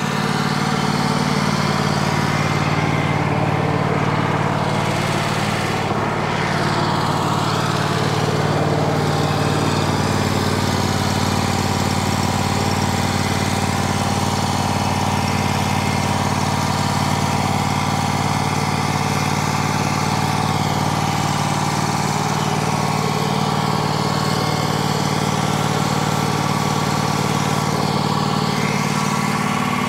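Wood-Mizer portable sawmill running steadily, its engine holding one even pitch with a constant hiss of machinery noise over it.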